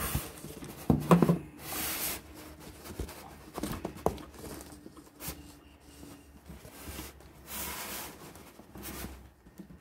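Sewing machine being jiggled and worked out of its foam packing insert in a cardboard box: scraping and rubbing of plastic against foam and cardboard, with scattered knocks, the loudest about a second in.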